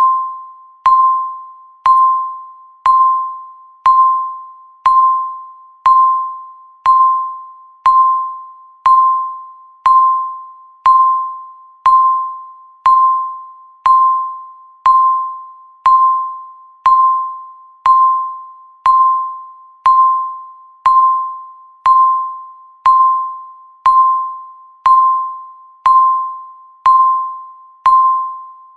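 Countdown timer's electronic beep, one clear tone struck once a second, each beep fading away before the next.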